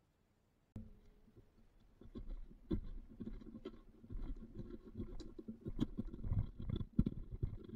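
Irregular low rubbing and rumbling with scattered sharp knocks, starting about a second in: handling noise, with no power tool running.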